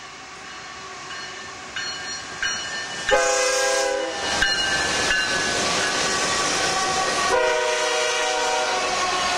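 A BNSF freight train led by GE ES44DC diesel locomotives sounds its multi-chime air horn as it passes. There is a loud blast about three seconds in, a short toot a second later, and another long blast near the end. The engines and rolling wheels grow steadily louder as the locomotives come alongside.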